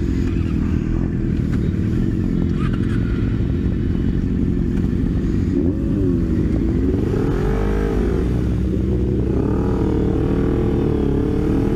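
Several sport-bike engines pulling away at low speed from close by. From about six seconds in, engine notes rise and fall as the bikes are revved and shifted.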